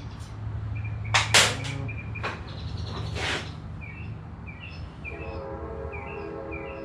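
Sharp clanks and rattling of metal hardware, loudest a little over a second in, with short high chirps repeating. From about five seconds in a steady multi-tone hum sets in.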